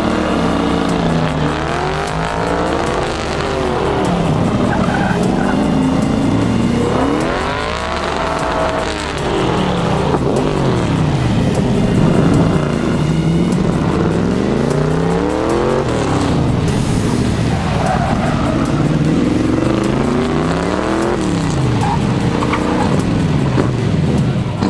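Pickup truck engines revving hard during donuts and burnouts, the pitch climbing and falling again and again, with tires squealing and spinning on the pavement.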